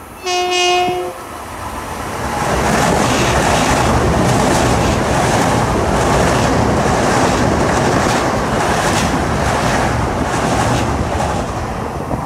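Long Island Rail Road commuter train giving one short horn blast as it approaches. It then passes close by with a loud, steady rush of wheel and rail noise and a repeated clatter of wheels over the track.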